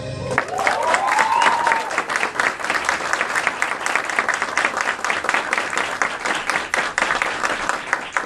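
Small audience applauding with steady clapping. Early on, one voice gives a long cheer that rises and falls in pitch.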